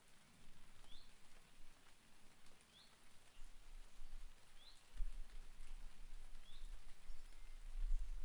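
A small bird repeating one short, slightly rising call about every second and a half over light rain pattering. About five seconds in, a low rumble comes up underneath.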